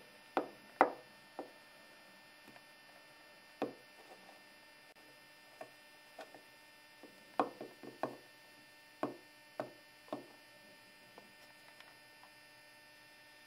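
A small toy figure tapped and set down on a hard surface as it is walked along by hand: about a dozen short, irregular knocks, the loudest about a second in and around the middle. A faint steady electrical hum lies underneath.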